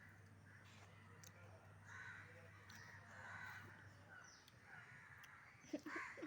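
Near silence with faint bird calls every second or so, over a low steady hum.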